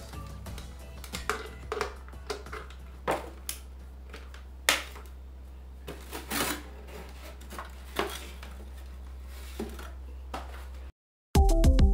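Small 12 V DC cooling fans of a homemade styrofoam ice fan running with a steady low hum. Short knocks, clicks and foam rubbing come through it as the foam box and its lid are handled. After a brief dropout near the end, background music with a beat starts.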